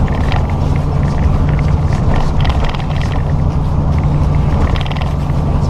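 A truck's engine drones steadily with road noise, heard from inside the cab at highway speed.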